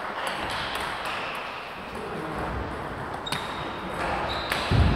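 Table tennis balls clicking off bats and tables, scattered hits in an echoing sports hall. A couple of short high squeaks come late, and a low thump near the end is the loudest sound.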